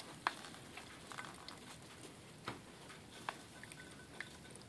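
Faint, scattered drips and small clicks, about one a second, as hot coffee is squeezed out of a plastic Keurig pod and dribbles into a pot.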